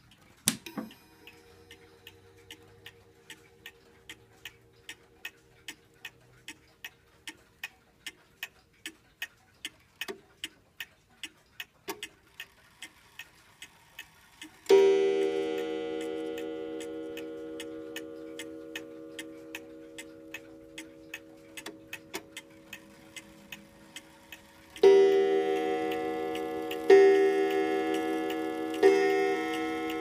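Junghans pendulum mantel clock ticking steadily at about two ticks a second. About halfway through it strikes once, a loud ringing tone that fades slowly over some ten seconds, marking the half hour. Near the end it starts striking the hour, with three strokes about two seconds apart, each ringing on.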